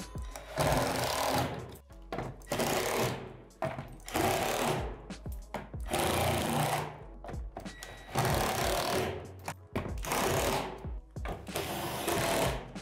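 Cordless drill driving screws up through the roof panel into the shed's gable: one run of about a second per screw, about seven in all.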